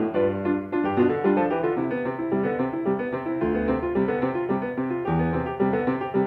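Solo piano music with many quick notes moving through the middle register.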